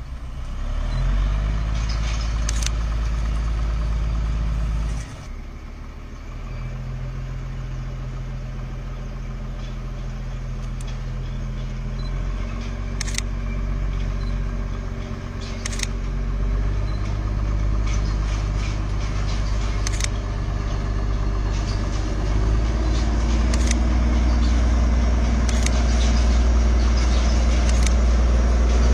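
Engine running steadily, its pitch stepping up and down several times, with occasional sharp clicks.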